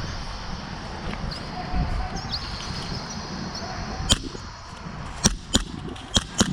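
Wind rumbling on the microphone, with birds chirping in the first half. From about four seconds in come five sharp, short cracks of airsoft gunfire.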